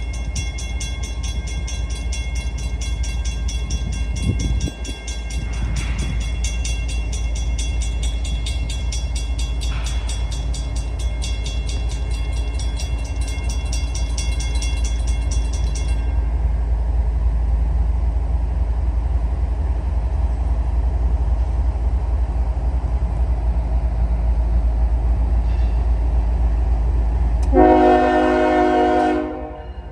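Loaded CSX freight train pulling away behind GE ES44 and ET44AH diesel-electric locomotives, a steady low rumble, with a rapid high-pitched ringing through the first half that stops about halfway. Near the end the locomotive's air horn sounds one loud chord blast of about a second and a half.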